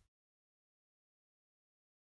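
Silence: faint room noise cuts off right at the start, leaving no sound at all.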